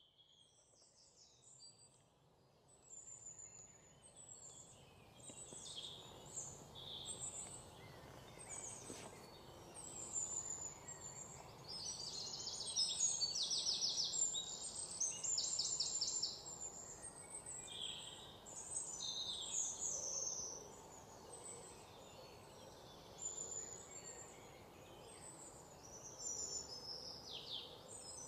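Several songbirds chirping and trilling, including quick runs of rapidly repeated notes, over a low steady background noise. The sound fades in at the start and grows louder over the first dozen seconds.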